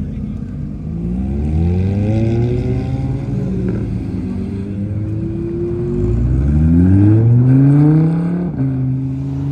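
Cars accelerating past one after another, engines revving up twice with rising pitch. The second pull is the louder one and drops suddenly near the end.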